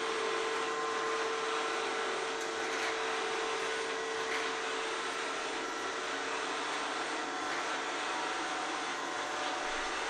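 Sencor SVC7020BK robotic vacuum cleaner running: a steady whir of its suction fan and brushes with a constant hum.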